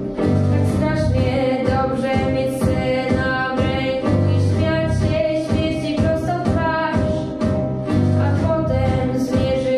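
A teenage girl singing a Polish song into a microphone, holding long notes with vibrato, over an instrumental accompaniment with a steady drum beat and bass.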